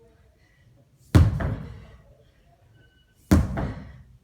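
Sledgehammer striking a tire twice, about two seconds apart, each blow a heavy thud that dies away over under a second.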